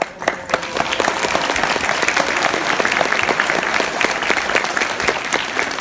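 Audience applauding, breaking out suddenly and holding as steady, dense clapping.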